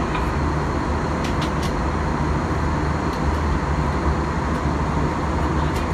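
Steady cabin drone of an Airbus A321-200 in flight, heard from inside the passenger cabin: a constant rush of engine and airflow noise.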